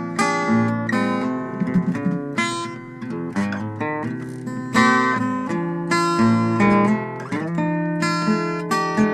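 Acoustic guitar strummed, with chords struck again and again at a steady pace and left ringing.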